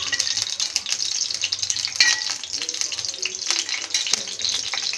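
Hot cooking oil sizzling and crackling in an iron kadai, a steady hiss with many small pops. About two seconds in there is a single sharp metallic clink.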